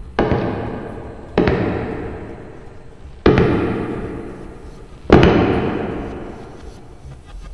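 Four heavy booming hits, spaced irregularly about one and a half to two seconds apart, each with a long fading ring.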